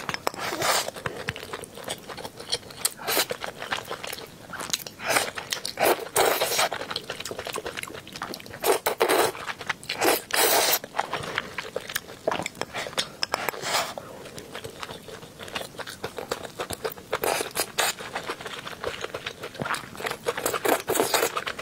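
Close-miked eating: wet slurps of wide starch noodles in a thick sauce, mixed with chewing and mouth smacks, in irregular bursts of about half a second each.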